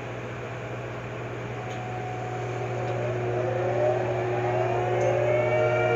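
Floating crane's engine and winch machinery running with a steady hum; from about halfway through, a whine rises in pitch and the sound grows louder as the machinery works harder.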